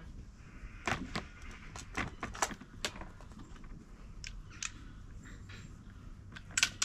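Scattered sharp metallic clicks and clacks from a Bora 12-gauge semi-automatic shotgun being handled, several in quick succession about a second in and a few more later. A louder sharp crack comes at the very end.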